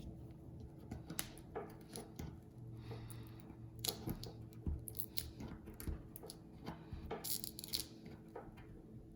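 Small repair tools clicking and scraping against an opened iPhone 8 while the battery is worked loose from its thick adhesive: scattered light clicks with a couple of short scraping sounds.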